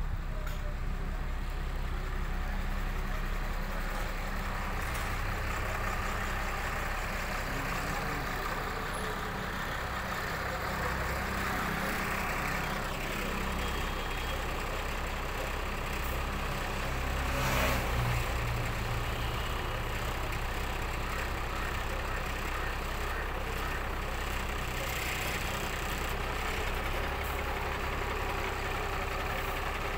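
Truck engine idling steadily, with a brief louder swell about eighteen seconds in.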